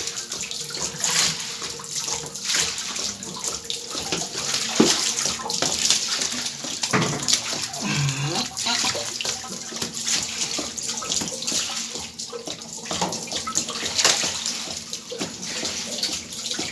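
Water running and splashing steadily, with a faint steady hum underneath.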